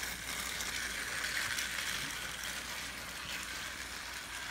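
Thomas & Friends motorized toy trains, Thomas and Merlin, running on plastic track: a steady whirring and rattling of their small motors, gears and wheels.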